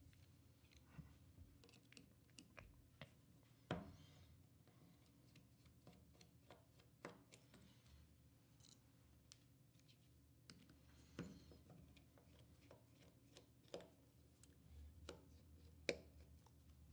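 Faint, scattered clicks and light taps of a small metal camera lens and hand tools being handled on a work surface, with a few louder knocks spread through.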